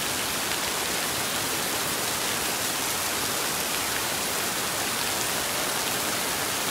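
Heavy rain mixed with hail pouring down onto grass and ground, a steady, even hiss with no let-up.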